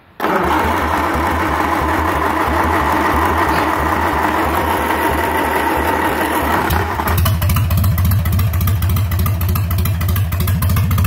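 1948 Commer truck engine, out of use for over thirty years, turning over on a start attempt with a steady rhythmic beat that starts suddenly. About seven seconds in the sound turns deeper and heavier, with a stronger, more even beat.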